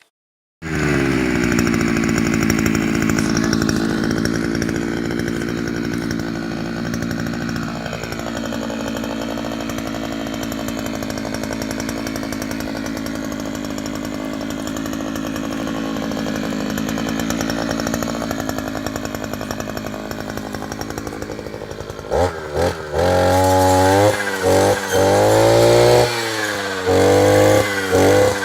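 Maxmat 43cc two-stroke brush cutter engine starting up abruptly and running steadily. About two-thirds of the way through it is revved repeatedly in short bursts, its pitch rising and falling with each blip.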